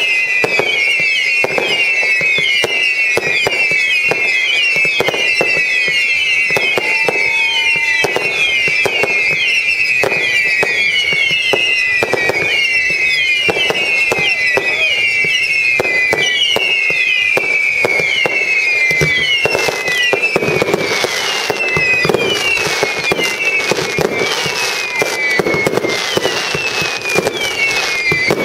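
Fireworks display with a rapid run of whistling fireworks, each whistle falling in pitch, about two a second, over sharp bangs and cracks. Crackling grows denser and louder in the second half, with a large glittering burst near the end.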